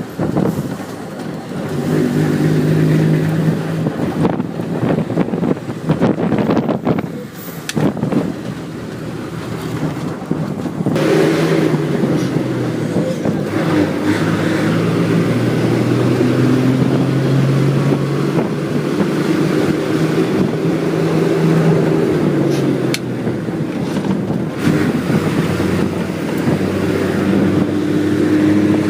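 Bus engine running as the bus drives along, with road noise heard from inside the bus; the engine note shifts up and down as it changes speed.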